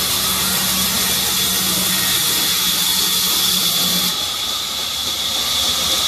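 Sawmill band saw running and cutting through mahogany wood: a loud, steady hiss, with a low hum underneath that stops about four seconds in.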